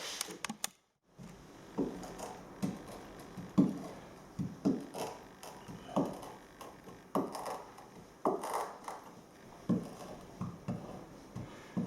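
A screwdriver poking and scraping into a timber floor joist, giving irregular short knocks and scrapes about once a second, probing the wood for rot.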